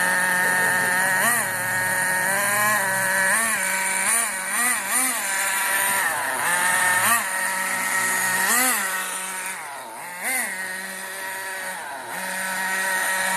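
Radio-controlled toy vehicle's motor running with a steady whine, its pitch briefly rising and falling again and again.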